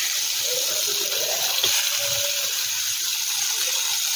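Chopped onions sizzling in a little hot oil with cumin seeds in a steel kadai: a steady hiss.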